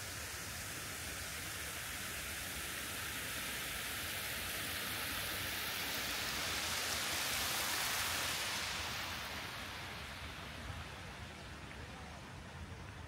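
Water splashing down the steps of a stepped water cascade, a steady hiss that swells to its loudest about eight seconds in and then fades.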